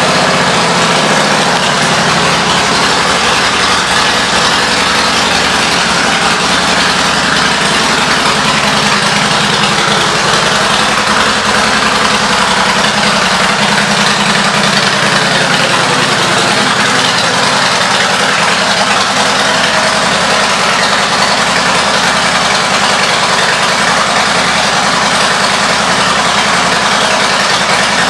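A 2007 Harley-Davidson Heritage Softail Classic's Twin Cam 96 V-twin idling steadily and loud through Rinehart aftermarket exhaust pipes.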